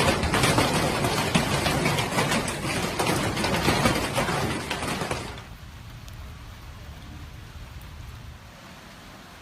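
Hailstorm: a loud, dense clatter of many hailstones striking hard surfaces amid rushing storm noise, cutting off abruptly about five seconds in to a faint steady background.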